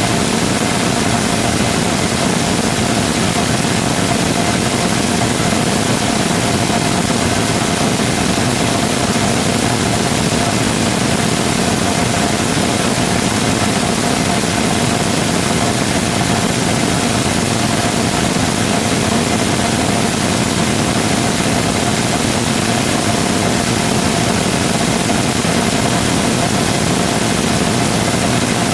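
Rotating detonation rocket engine combustor firing steadily during a long-duration hot-fire test: a continuous, even rush of noise with a faint steady tone running through it.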